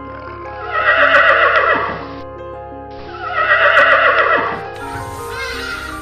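A horse whinnying twice, two long neighs a second or so apart, over background music.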